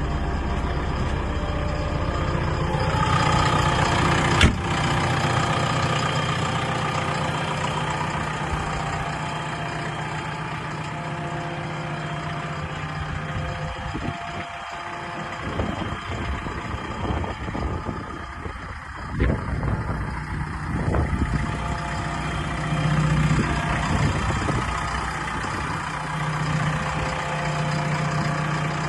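JCB 3DX backhoe loader's 75 hp diesel engine running steadily, with a sharp click about four seconds in and several short knocks in the middle.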